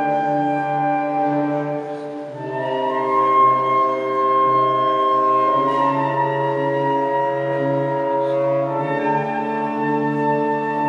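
Instrumental music from woodwinds and brass holding slow, sustained chords. The chord changes a little after two seconds and again near the end.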